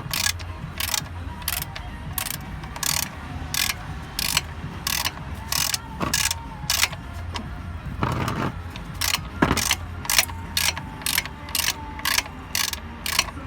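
Ratchet wrench clicking in repeated back-strokes, about two clicks a second, as the screws holding the engine undertray shield are undone. A steady low hum runs underneath.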